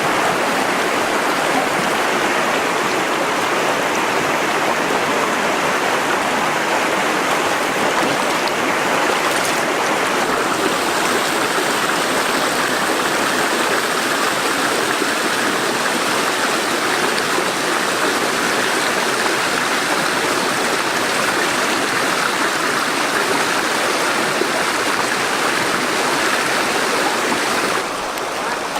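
River water rushing and splashing steadily over rocks, dropping a little in level near the end.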